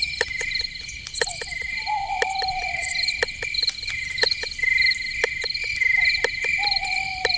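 Night forest chorus of crickets trilling in quick, even pulses, over a run of sharp clicks. Twice, a longer, lower animal call sounds and falls slightly in pitch, once about a second in and again near the end.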